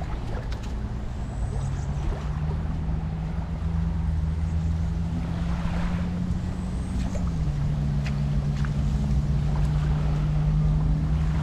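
An engine running steadily with a low drone; its pitch drops a step about seven seconds in, as if throttled back. A haze of wind and surf lies under it.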